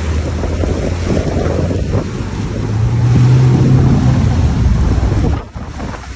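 Vehicle engine running under load while fording a fast river, with water rushing and splashing against the doors. The engine note swells about halfway through, and the whole sound drops away abruptly near the end.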